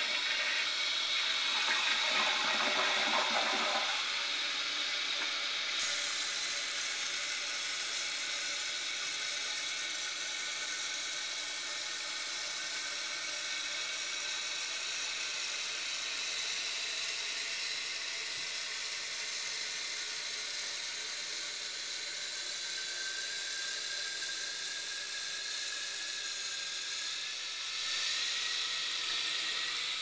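Original Kohler ballcock fill valve refilling a 1988 Kohler Highline toilet tank after a flush: a steady hiss of running water, heavier in the first few seconds. Over the last several seconds a faint whistling tone rises in pitch as the float ball lifts toward the shut-off level.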